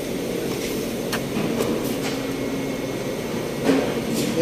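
Steady hum of machinery in a plastic-bottle factory, with a few light clicks between one and two seconds in and a louder knock near the end.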